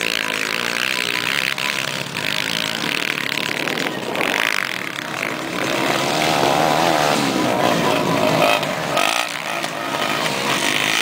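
Several motocross bike engines revving, the pitch rising and falling as the riders accelerate and ease off.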